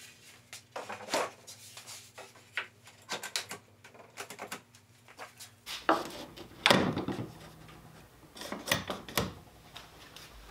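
A long wooden board handled against a workbench: scattered light knocks and clicks, with louder scrapes of wood rubbing on wood about six seconds in and again near the end.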